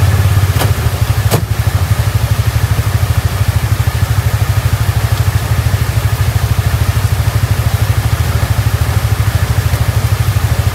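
Side-by-side UTV engine idling steadily, a rapid even low pulsing, with two light clicks in the first second and a half.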